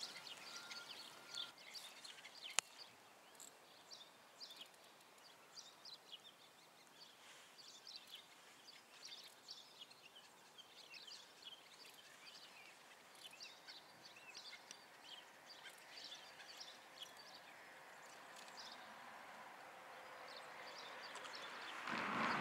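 Small birds chirping and calling over faint outdoor ambience. Near the end, a short splash at the water surface, the loudest sound here.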